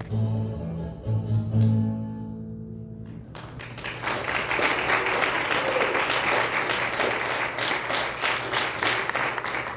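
A piece of music ends on held low notes about three seconds in, and a crowd then breaks into steady applause for the rest.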